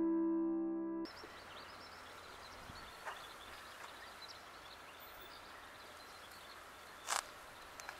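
Solo piano music cuts off about a second in, leaving faint outdoor garden ambience with scattered small bird chirps. A brief sharp noise stands out near the end.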